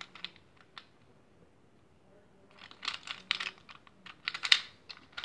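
Plastic gears of a Gear Ball puzzle clicking as it is twisted in the hands: a few clicks at first, then a quick, dense run of clicks from about halfway.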